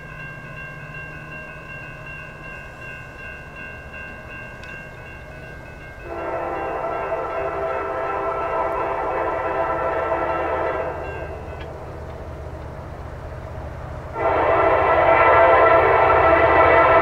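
Norfolk Southern freight locomotive's air horn blowing two long chord blasts, one about 6 s in lasting about five seconds and a louder one starting about 14 s in. Beneath them is the steady low rumble of the train, and a fainter steady tone is heard before the first blast.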